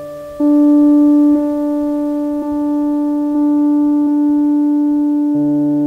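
Sustained synthesized drone tones from the Listening Back browser add-on, which turns web cookies into sound. About half a second in, the low tone drops away and a louder tone an octave higher takes over as a cookie's sound is raised in octave, with soft re-strikes about once a second. Near the end the lower tone comes back under it.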